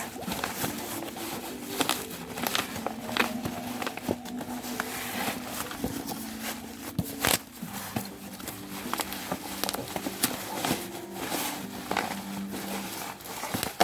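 Packaging being handled, with crinkling and irregular clicks and crackles. Underneath runs a faint low hum that shifts in pitch now and then.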